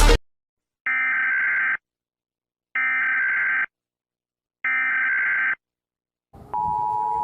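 Emergency Alert System (EAS) SAME header: three identical bursts of buzzy, high-pitched data tones, each about a second long, with a second of silence between them. Near the end comes the steady, harsh two-note EAS attention signal.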